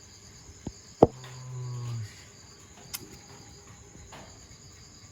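Crickets trilling steadily, with a sharp snap about a second in followed by a dog's low growl lasting about a second.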